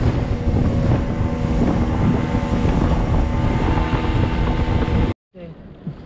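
Outboard motor driving an inflatable boat at speed: a steady engine drone mixed with wind on the microphone and water rushing past. It cuts off abruptly about five seconds in, leaving a much quieter stretch.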